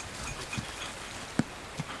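Footfalls of a person and dogs walking up a grassy, stony mountain slope: a few scattered soft knocks, the clearest about halfway through, over a steady outdoor background with a few faint short high tones.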